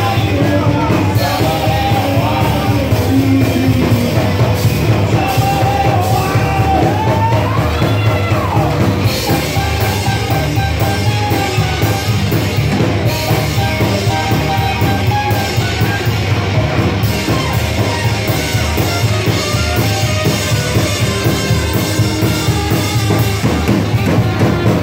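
Live band playing up-tempo swing dance music, with drums keeping a steady beat under a saxophone melody.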